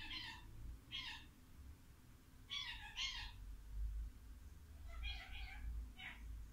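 A Pomeranian giving about six short, high-pitched, mewing yelps during play, some singly and two in quick succession a little before the middle.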